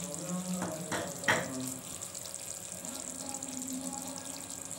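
Pointed-gourd and poppy-seed gravy simmering in a frying pan, a steady bubbling hiss. A few light clicks come about a second in.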